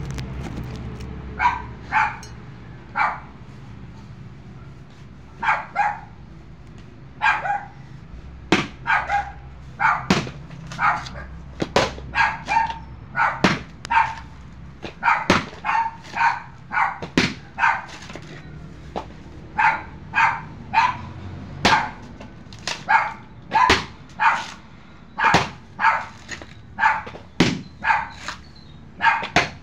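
A dog barking repeatedly, often two or three barks at a time, starting about a second and a half in. Sharp knocks of a machete striking coconuts fall among the barks.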